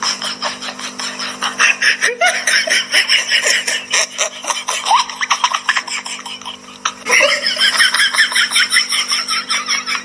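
High-pitched, rapid laughter, breaking off briefly about two seconds in and dipping just before seven seconds, over a steady low hum.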